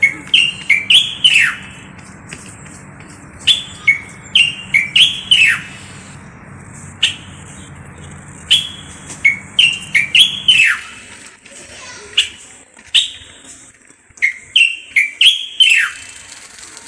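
Common bulbul (Moroccan bulbul) singing: short phrases of loud whistled notes, several ending in a quick falling slur, repeated every few seconds. A low hum underneath stops about two-thirds of the way through.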